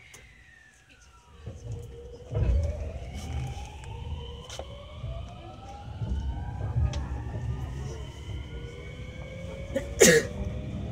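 JR West 223 series 5500 electric train pulling away and accelerating. Its Mitsubishi inverter-driven traction motors whine in several tones that rise steadily in pitch, over a low running rumble that starts about a second and a half in. A single sharp clunk comes near the end.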